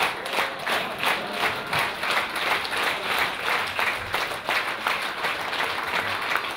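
An audience applauding: many people clapping, at first roughly together in a beat, then as a denser, uneven applause.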